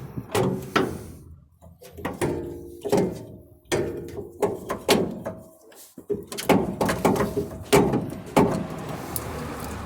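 Irregular metal clanks and knocks, each with a brief ringing, from metal parts and tools being handled and set down during a truck shock-absorber swap.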